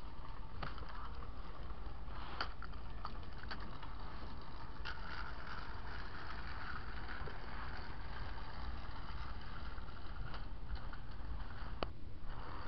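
Battery-powered Trackmaster toy train engine (Steelworks Hurricane) running on toy track: a steady whir of its small motor and gears, with scattered sharp clicks.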